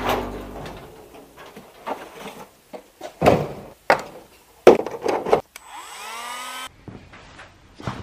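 A metal workshop cabinet door is opened and a plastic Dremel case is taken out and handled, making a series of sharp knocks and clatters. About six seconds in there is a brief scraping squeal.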